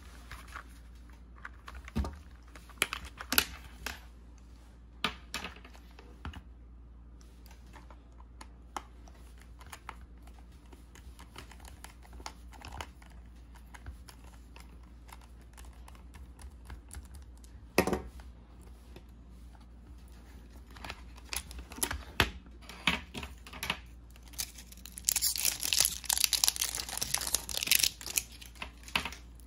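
Scattered clicks and taps of hard plastic being handled as a screwdriver undoes the small screw on a toy remote control's battery cover, with one sharper click about 18 seconds in. Near the end, a few seconds of crinkling, rustling noise as AA batteries are handled.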